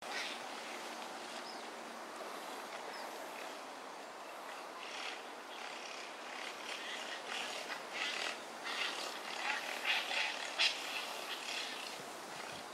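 Otters swimming in a canal, with many short high chirps and splashes over a steady outdoor background; they come thicker from about halfway.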